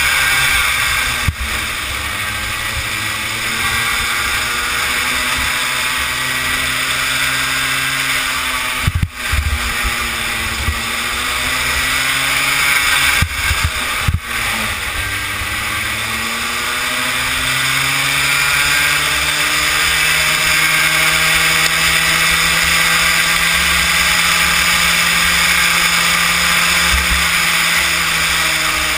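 Kid kart's small engine running hard on track from onboard. The engine note falls and climbs back twice, about nine and fourteen seconds in, as the kart slows for corners and accelerates out, with a few brief knocks.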